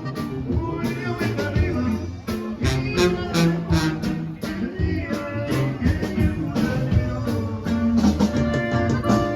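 Music with singing, guitar and a steady beat.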